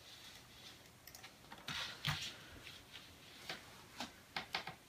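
Scattered clicks from a computer mouse and keyboard being used, with a short rustle about two seconds in and a quick run of clicks near the end.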